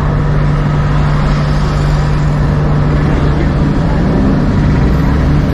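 Electric tram running through city streets: a steady low hum over continuous rumbling of wheels and traffic, the hum turning uneven a little past halfway.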